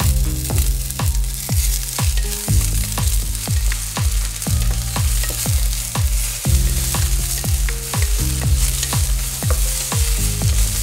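Spot prawns sizzling in garlic butter in a stainless steel pan, stirred with a wooden spoon, under background music with a steady beat of about two beats a second.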